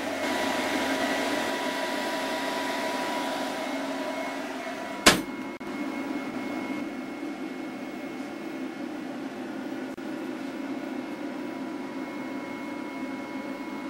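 Steady whirring hum of small PC cooling fans running, with a sharp click about five seconds in.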